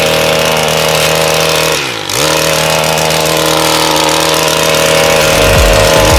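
Handheld petrol brushcutter running at high revs. About two seconds in, the engine speed dips briefly and then picks straight back up.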